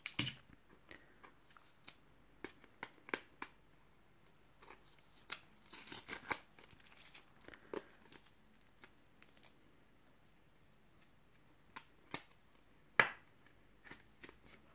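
Faint crinkling and clicking of a clear plastic card sleeve as a limited-edition trading card is handled and worked out of it. There is a longer rustle about six to seven seconds in and a sharp click about thirteen seconds in.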